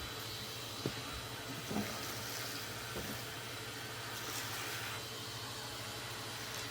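A machine running steadily with a low hum and a hiss, with a few light knocks about one, two and three seconds in.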